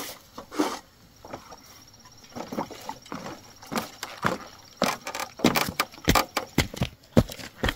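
Footsteps on a bamboo raft: an irregular run of knocks and clicks as people walk across the bamboo poles, growing busier from about two seconds in.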